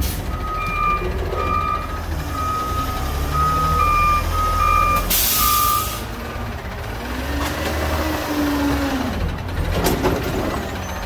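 Peterbilt front-loader garbage truck backing up, its reverse alarm beeping at one pitch about twice a second over the diesel engine's low running rumble. The beeping stops about six seconds in with a short hiss of air brakes. The engine then revs up and drops back, with another brief hiss near the end.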